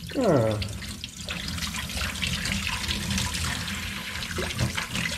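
Kitchen tap running into a stainless steel sink while hands are rinsed under the stream, washing coffee grounds off. A short sound sliding down in pitch, likely a voice, comes right at the start.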